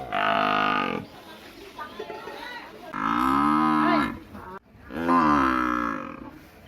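A buffalo mooing three times, each call about a second long; the second and third calls rise and then fall in pitch.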